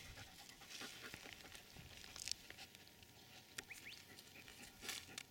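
Young gray wolf panting faintly close to the microphone.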